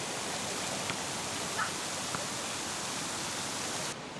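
Public fountain water splashing in a steady rush, which cuts off abruptly near the end.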